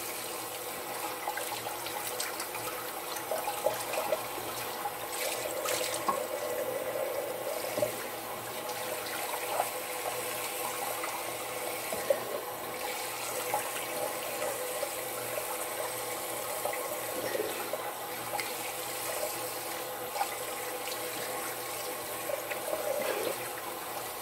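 Water running from a tap into a sink, with small irregular splashes as hands scoop it and rub the face to rinse off a face scrub.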